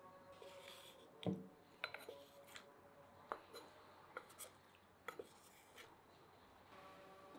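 Wooden spatula tapping and scraping against a perforated metal steamer tray and a ceramic plate as steamed manty dumplings are slid off: a scatter of light clicks and taps, the loudest about a second in.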